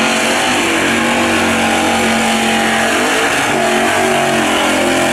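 Lifted mud-bogging truck's engine running hard at high revs as it plows through a mud pit, the pitch dipping and climbing again about three seconds in, over a steady hiss of spraying mud.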